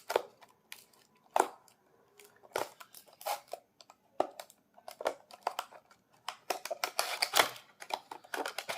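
Earphone packaging being opened by hand: crinkling and tearing of the packaging with scattered sharp clicks and taps, busier and more continuous near the end.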